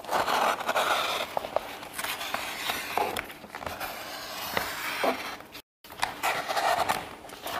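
Self-adhesive vinyl film rustling and crinkling as it is handled, with scattered light taps and clicks. The sound cuts out for a moment about six seconds in.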